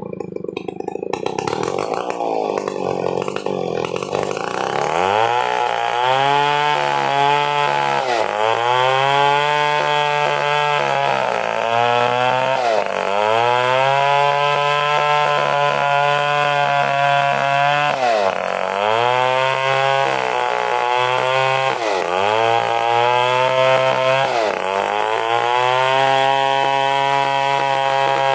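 Stihl chainsaw ripping an angsana log lengthwise into planks. It runs lower and rougher for the first few seconds, then climbs to full revs about five seconds in. Its pitch sags several times as the chain bogs in the cut, then recovers.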